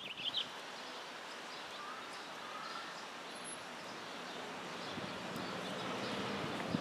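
Steady hiss of rain falling on a station platform and tracks, with a few faint bird chirps near the start; the hiss grows slightly louder near the end.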